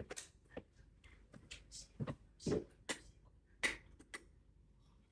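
Scattered light clicks and knocks of objects being handled and set down, with two louder knocks about two and a half and three and a half seconds in.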